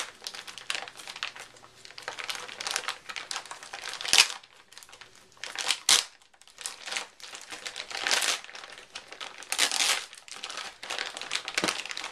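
Packaging crinkling and rustling in irregular bursts as it is cut open with a pocket knife and handled, with sharper, louder rasps about four and six seconds in.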